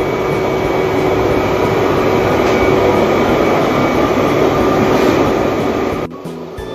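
Whirlpool bath's pump and air jets running, a loud, steady churning rumble with a constant hum as they froth the bath foam up; it cuts off suddenly about six seconds in.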